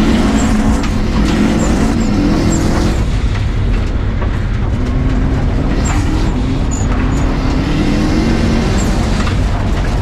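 Subaru WRX rally car's turbocharged flat-four engine driven hard on dirt, its revs climbing and falling with a brief drop about three seconds in, over a steady noise of tyres on loose dirt with scattered sharp clicks.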